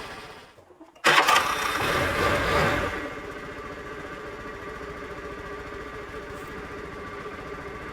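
Moped scooter engine starting about a second in, running up briefly for about two seconds, then settling into a steady idle.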